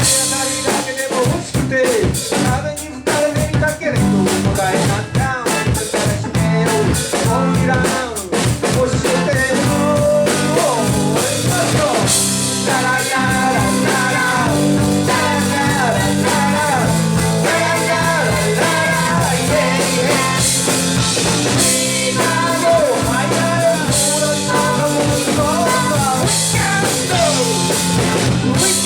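Live rock band playing with drum kit, guitar and keyboard: a steady, busy beat under melodic lines that slide in pitch.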